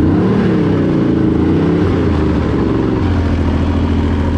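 Yamaha Nitro snowmobile engine running under way, its pitch rising and falling in the first two seconds, then holding steady.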